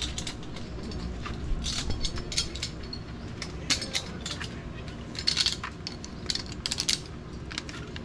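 Metal zip-line hardware, carabiners and trolley, clinking and clicking irregularly as a harness is clipped onto the steel cable, with a cluster of louder clicks about five to seven seconds in.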